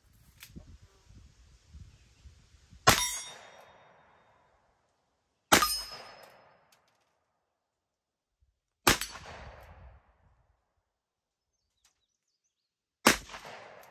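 A .45 ACP revolver fired four times at a slow, deliberate pace, each shot followed by a rolling echo. Steel gong targets clang among the echoes.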